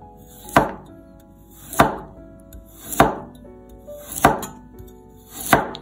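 A cleaver slicing through a carrot and hitting a wooden cutting board five times, about one cut every second and a quarter; each cut builds briefly and ends in a sharp knock on the board. Background music plays underneath.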